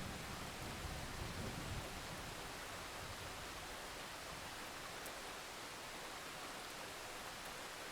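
Steady hiss of heavy rain during a thunderstorm, with the low rumble of a thunderclap dying away in the first two seconds.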